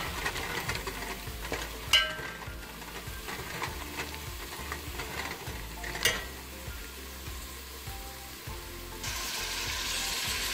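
Chopped onions and whole spices sizzling in hot oil in a metal pot while being stirred with a steel spoon, which clinks against the pot twice. The sizzle grows louder near the end.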